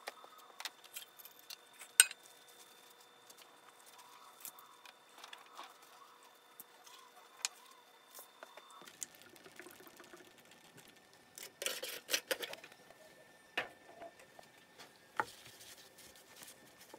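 Faint handling sounds: scattered light taps and clicks as paper towels are laid into a metal baking pan with gloved hands. A short burst of paper rustling comes about two-thirds of the way through.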